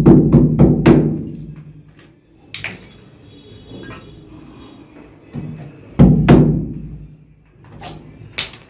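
Hammer blows driving a metal hook into a block wall to hold a pipe. A quick run of blows, about four a second, stops about a second in. A few single blows follow, the loudest about six seconds in.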